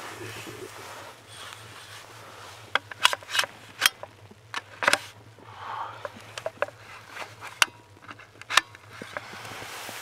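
Snow shovel digging into deep fresh snow: soft crunching scoops with a run of sharp scraping clicks from the blade, several in quick succession between about three and nine seconds in.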